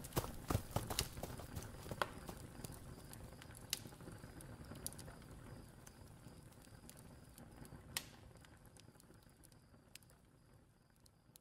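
Audio-drama sound effects: irregular knocks and clicks over a low rumbling haze, growing sparser and fading out toward the end.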